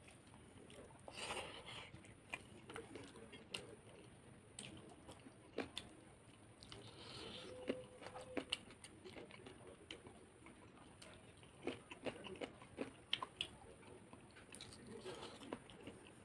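Close-miked eating by hand: wet, sticky clicks and squishes of fingers mixing rice with curry, along with chewing and biting. The clicks are scattered throughout, with a few sharper ones in the second half.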